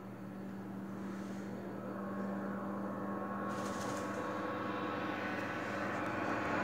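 A steady low hum made of several held tones, slowly growing louder, with a brief higher rustle about three and a half seconds in.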